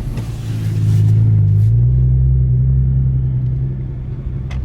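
Loud car engine heard from inside the cabin, its low drone swelling about half a second in and stepping up in pitch near two seconds as the revs rise, then easing off slightly.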